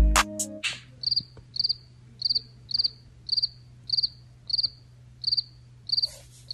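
Cricket chirping sound effect used as a waiting gag: evenly spaced pulsed high chirps, about two a second. A hip-hop beat cuts off just after the start.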